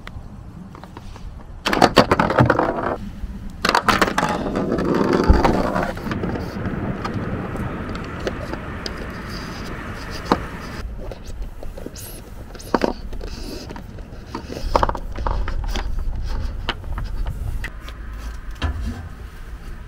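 Handling noise from working solar panel cables with hand tools: scattered clicks, scrapes and rustles, louder in the first few seconds, over a steady low rumble.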